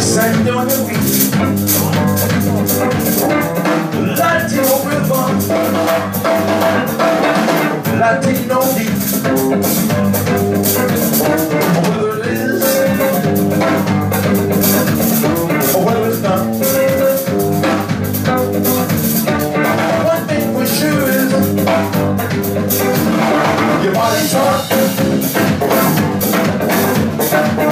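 Live band playing: electric guitar, electric bass and drum kit together in a steady groove.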